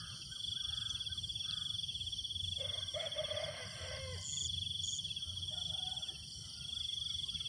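A steady chorus of night insects trilling in a fast, pulsing buzz. About three seconds in comes a brief pitched call whose pitch drops at the end.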